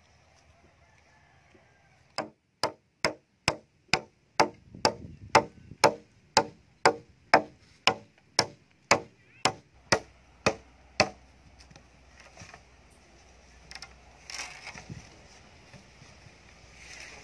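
Small axe chopping into a thin peeled wooden pole: about twenty sharp strikes at roughly two a second, stopping about eleven seconds in, followed by a few faint knocks as the pole is handled.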